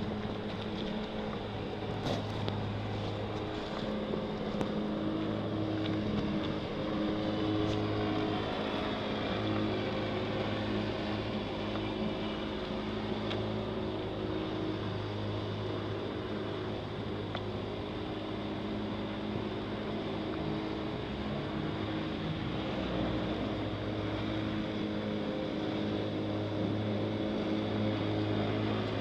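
A steady motor hum at an unchanging pitch, its low note swelling and fading every few seconds.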